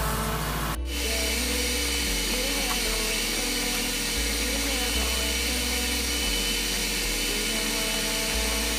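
Electric arc welding on a steel pipe elbow: a steady, hissing crackle from the arc, with faint background music underneath.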